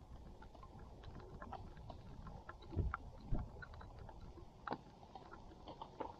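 Wind buffeting the camera microphone in a low, uneven rumble, with scattered light taps and a couple of louder thumps about three seconds in.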